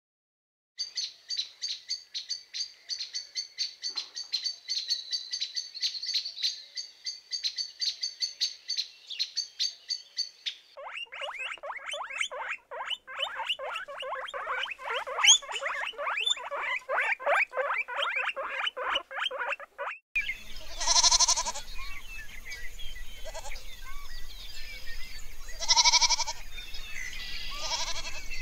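First, about ten seconds of rapid, high-pitched chirping from a small animal. Then guinea pigs squeak in fast repeated calls for about nine seconds. In the last part, goats bleat a few times.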